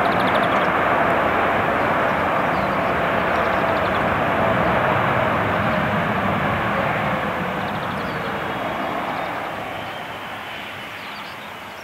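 Boeing 787-8 jet engines roaring as the airliner rolls out on the runway after landing, with a faint tone sliding slowly downward. The roar gradually dies away over the second half.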